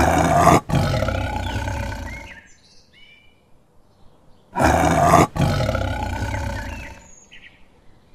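Tiger roaring twice, each roar about two and a half seconds long, with birds chirping faintly in the gap and after.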